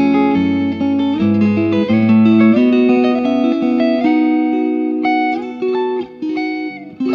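Background music: a plucked guitar melody over bass notes.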